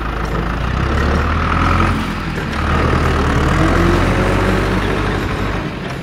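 Heavy truck engine running, with a short dip about two seconds in and then a rising pitch as it revs up. The toy truck on screen has no motor, so this is an engine sound effect laid over the picture.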